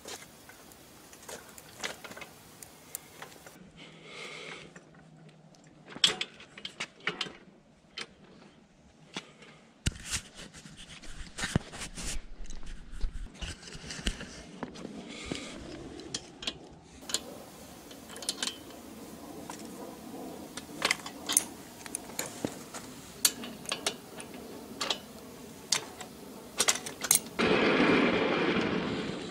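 Scattered metal clicks and clanks from handling a small hand tool and the steel frame of a homemade bandsaw mill. Near the end comes a louder rumble for about two seconds as the mill's carriage is pushed along its steel rail.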